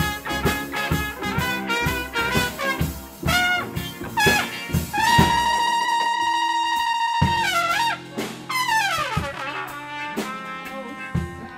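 Small jazz combo playing live: drum kit, upright bass and keyboards. Drum hits drive the first few seconds, then a lead line holds one long high note for about two seconds before a note slides down in pitch.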